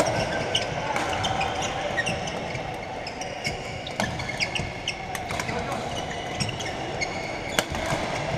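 Badminton rackets hitting shuttlecocks on several courts, a scattering of sharp pops, amid shoes squeaking on the court floor and the chatter of many players in a large, echoing sports hall.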